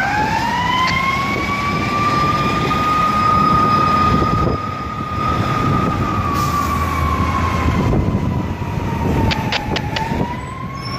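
Fire truck siren wailing as the ladder truck pulls away: the pitch climbs, holds high for several seconds, slowly sags, then winds back up near the end.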